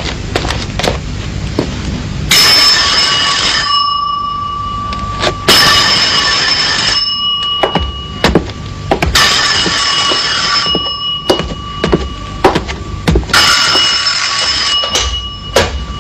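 Desk telephone's electric bell ringing four times, each ring about a second and a half long and a few seconds apart, with a faint tone hanging on between rings: an incoming call. Scattered small clicks and knocks run underneath.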